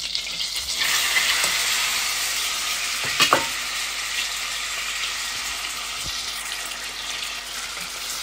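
Raw beef cubes dropping into hot melted butter in a stainless steel pot. The sizzle jumps up about a second in, then settles to a steady frying sizzle while the meat is stirred, with a single sharp knock a little after three seconds.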